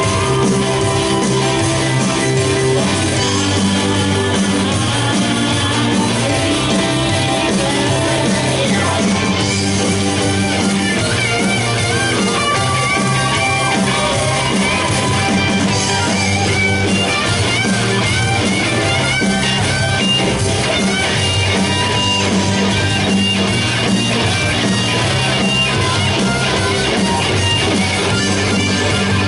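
Live rock band playing loudly and steadily, electric guitar lines over bass and drums.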